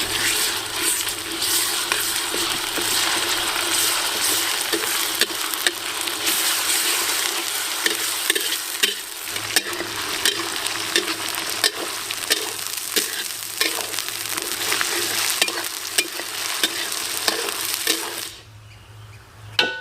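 Onion, spices and ginger-garlic paste frying in hot oil, sizzling steadily while a utensil stirs them, with frequent sharp taps and scrapes against the pan. The sizzle drops away sharply near the end.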